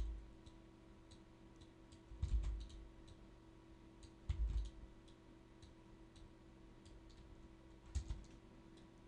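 Computer keyboard keystrokes and clicks, scattered and light, over a faint steady hum. Two dull low thumps come about two and four seconds in.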